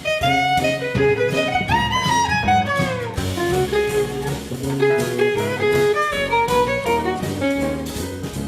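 Instrumental background music with guitar and bowed strings over a beat, with a rising and falling melodic run about two seconds in.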